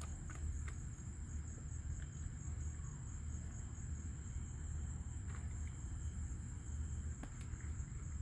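Crickets trilling in one continuous high, steady tone over a low steady rumble, with a few faint clicks.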